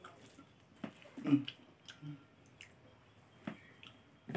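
Close eating sounds: chewing, with fingers squishing and mixing cooked rice on a plate. There are a few short soft clicks and smacks; the loudest comes a little over a second in.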